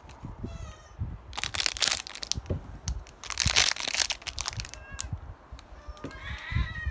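Plastic crinkling in two bursts, about a second and a half in and again around three and a half seconds, each lasting under a second. A cat gives a short faint meow about half a second in and meows again near the end.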